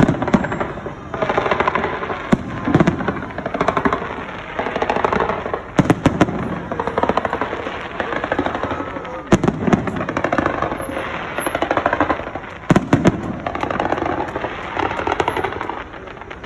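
Fireworks display: sharp shell bursts every few seconds, with long stretches of rapid crackling in between.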